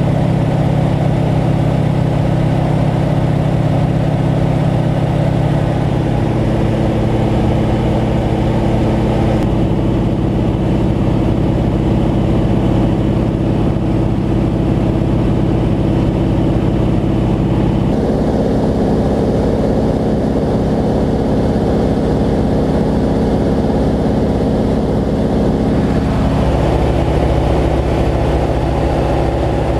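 Nine-cylinder radial engine of a PZL-104 Wilga 35A tow plane running steadily at high power in flight, heard from the cockpit. Its tone shifts a few times.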